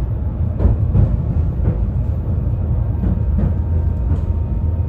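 Ride noise inside a moving 71-931M Vityaz-M tram: a steady low rumble from the running gear, with irregular knocks as the wheels pass over the track, and a faint whine from the traction drive.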